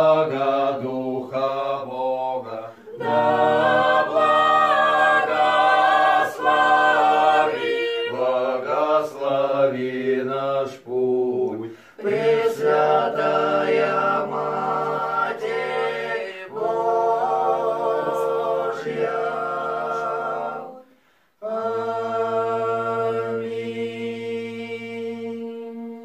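Small mixed folk ensemble of men's and women's voices singing together a cappella in several phrases with short pauses between them. It ends on a long held chord that fades out.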